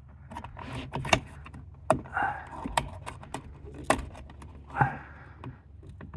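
Small metal clicks and clinks, several spread out over a few seconds, from hands and tools working at a metal clip inside a car's steering column, with a couple of short grunts and a steady low hum behind.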